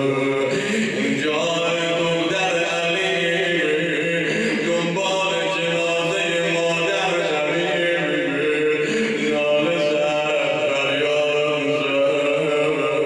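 A man chanting a Persian elegy (nohe) into a microphone, in long, drawn-out melodic lines.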